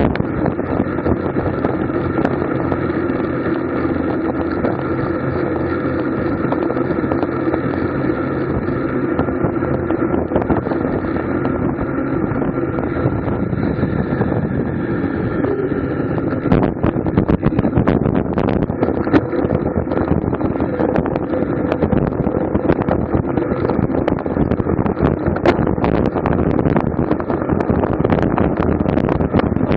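Wind and road noise on a camera mounted on a racing bicycle at race speed: a steady rushing drone. About halfway through it turns rougher, with many small rattling knocks.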